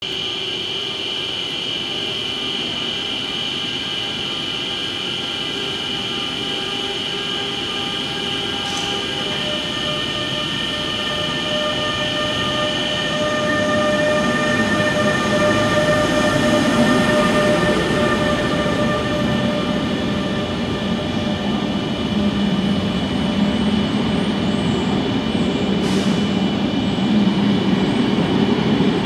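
Bombardier TRAXX electric locomotive pulling a passenger train away from the platform: a steady whine of several tones from its traction equipment over a rolling rumble. It grows louder as the locomotive passes close, then the coaches roll by with a low rumble, with a short high squeak about nine seconds in and again near the end.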